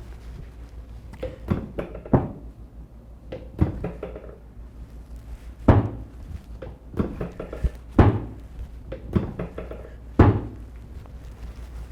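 A series of sudden thuds and knocks from a chiropractic adjustment, about a dozen of them, the loudest three coming about two seconds apart in the second half, over a low steady hum.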